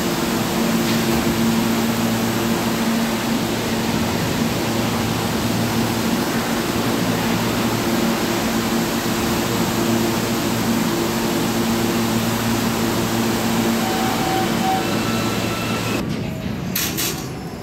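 R32 subway train at the platform: a steady rushing noise with a low hum under it. Near the end the rushing drops away and a few short clicks sound.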